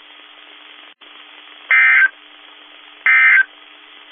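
NOAA Weather Radio SAME digital data bursts: two short, loud warbling squawks about 1.3 seconds apart over low radio hiss. The bursts are short enough to be the end-of-message code that closes a warning.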